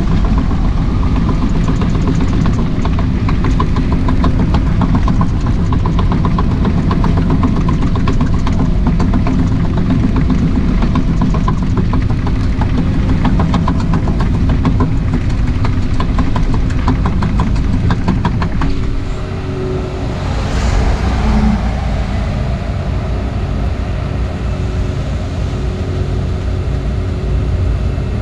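An excavator's diesel engine running steadily with a rapid, even pulse. About 19 seconds in its sound drops lower and quieter, followed by a short rushing noise.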